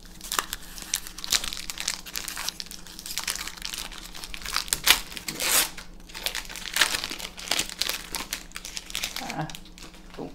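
An Avacyn Restored Magic: The Gathering booster pack's wrapper being torn open and crinkled by hand: irregular crackling rustles, with the loudest crinkles about halfway through.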